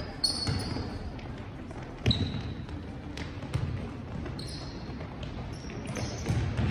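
Basketball dribbled on a sports-hall floor during play, a series of sharp bounces with the loudest about two seconds in, along with short sneaker squeaks and faint players' voices.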